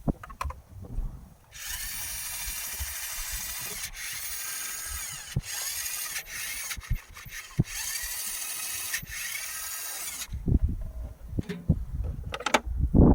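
Toy RC off-road car's small electric motor and gearbox whirring at full speed, its pitch wavering as it runs, for about nine seconds. Then it cuts off and a few low thumps and knocks follow, the loudest near the end.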